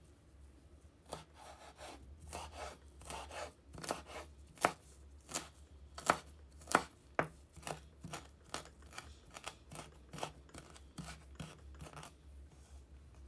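Fresh mint being cut: a run of short, crisp cutting strokes, uneven, about two a second, starting about a second in, loudest in the middle and stopping shortly before the end.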